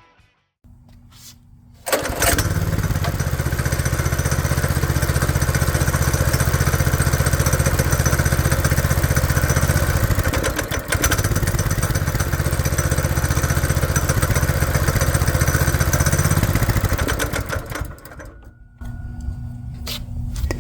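Go-kart's Honda GX160-clone single-cylinder four-stroke engine running on choke, coming in abruptly about two seconds in, sagging briefly near the middle, and dropping off near the end. It only runs with the choke on, a carburetor fault that cleaning the carburetor and its jet has not cured.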